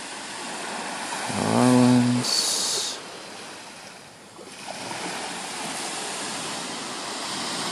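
Small waves lapping and washing onto a sandy beach in a steady surf hiss. A person's voice is heard briefly about one and a half seconds in, then a short sharp hiss.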